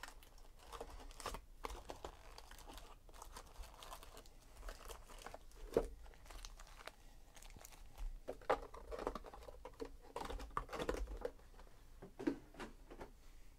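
Foil wrappers of Donruss Optic baseball card packs crinkling and rustling as the packs are lifted out of a cardboard hobby box and squared into a stack, with irregular light clicks and taps, a sharper one about six seconds in.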